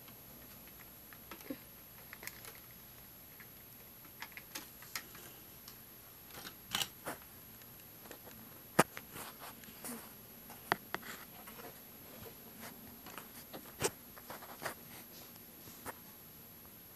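Irregular light clicks and taps over quiet room tone, a few of them sharper, near the middle and about three quarters of the way through, with a thin steady high whine underneath.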